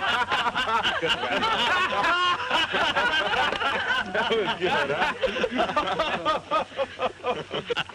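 A group of men and women laughing and chuckling together, many voices overlapping without a break.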